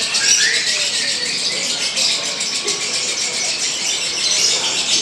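Lovebirds chattering in a fast, continuous high-pitched trill.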